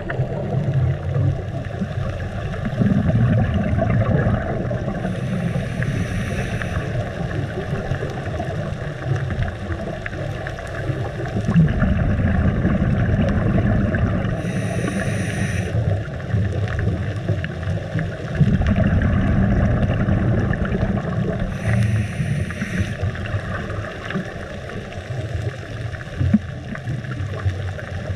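Scuba diver breathing through a regulator, heard underwater: a short hiss of inhalation about every 7 to 8 seconds, three times, with long low bubbling rumbles of exhaled bubbles between them.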